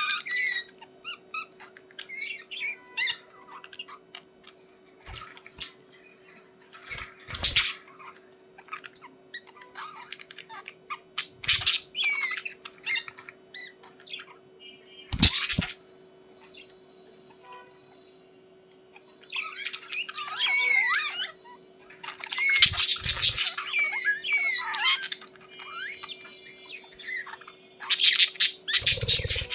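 Budgerigars chattering and squawking in scattered bursts of quick, warbling calls, with a few sharp clicks and a steady low hum underneath.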